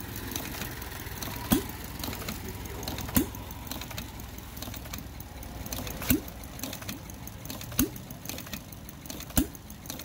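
Hand-built ten-cycle engine, pieced together from Briggs & Stratton, air-compressor and Volkswagen parts, running slowly under a steady mechanical clatter. A sharp pop comes about every one and a half seconds, each its firing stroke.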